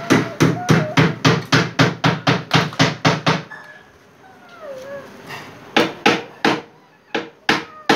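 Rapid, even knocking, about four strikes a second for some three seconds, followed by a child's brief high vocal sounds and then a few scattered knocks.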